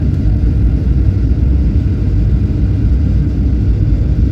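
Steady, loud low rumble of a vehicle in motion, with nearly all of the sound deep in the bass.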